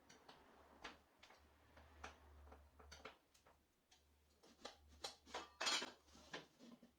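Faint, irregular clicks and taps of small hard objects being handled, with one brief louder scrape about five and a half seconds in.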